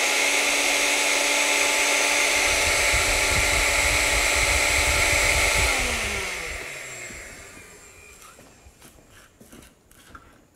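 Countertop blender motor running steadily at speed, chopping fresh herbs and salt with no liquid. About six seconds in it is switched off and winds down with a falling pitch. A few light knocks follow.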